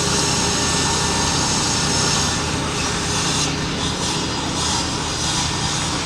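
Steady loud drone of heavy rail maintenance machinery engines, with a strong hiss over it. From about three and a half seconds in, the hiss comes in quick pulses.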